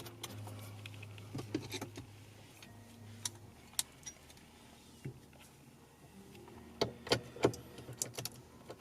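Scattered light clicks and knocks of hands and tools working on a car's steering wheel and steering column, with a cluster of sharper knocks near the end. A low steady hum stops about a third of the way in.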